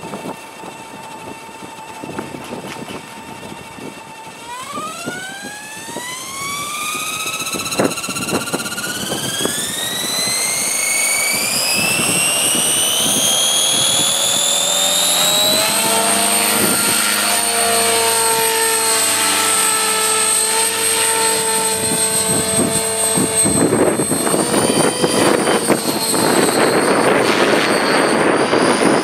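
JR SuperVoyager E500 electric radio-controlled helicopter spooling up: its whine rises steadily in pitch over about twelve seconds. It then holds high and steady, with a lower rotor hum, as the helicopter flies.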